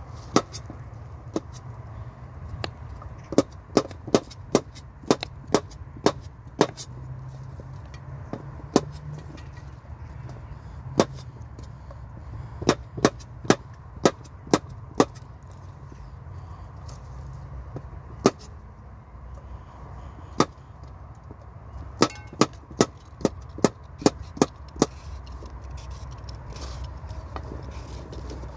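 Kitchen knife chopping vegetables, the blade knocking sharply on the cutting surface in runs of about two strokes a second, three times over with pauses between.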